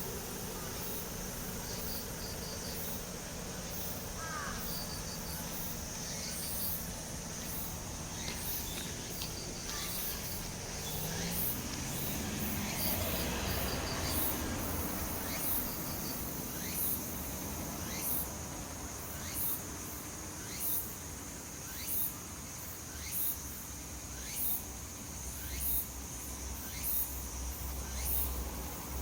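Tsukutsukuboushi cicadas and matsumushi (pine crickets) calling together: a steady high-pitched shrill with short chirps in the first few seconds. From about halfway there is a regular pulsing call, roughly one pulse a second.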